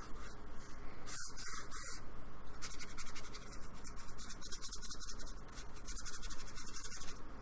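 Flat bristle brush scrubbing acrylic paint onto a paper painting surface: dry, scratchy rubbing in quick back-and-forth strokes.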